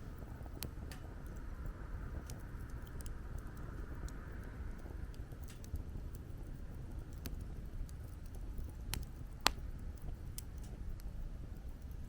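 Wood campfire crackling, with scattered pops and one sharper pop about nine and a half seconds in, over a low steady rumble of wind.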